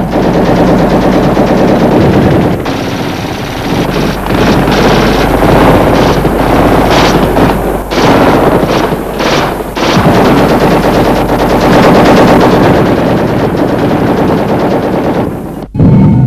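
Heavy, sustained automatic gunfire: machine guns firing rapid, continuous bursts, with a sudden break near the end.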